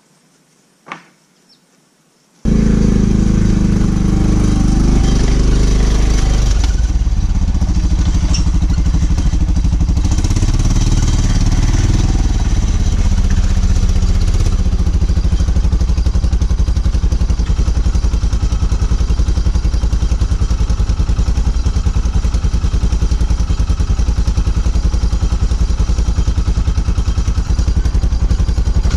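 Arctic Cat side-by-side utility vehicle's engine running, loud and steady with a fast low pulse, cutting in abruptly a little over two seconds in. Before that it is quiet but for a single click.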